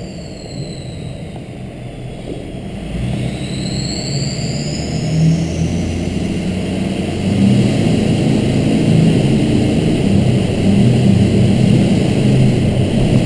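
Ford 6.0 Powerstroke V8 turbo-diesel running in a 2004 F-250, its turbocharger whistling high, the whistle gliding in pitch and fading after about six seconds. The engine grows louder about seven seconds in as the truck accelerates.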